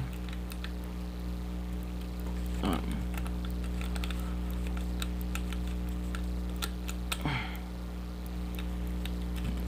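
Scattered small metallic clicks and ticks of a lock pick working the pins of a pin-tumbler challenge lock under tension, over a steady low electrical hum.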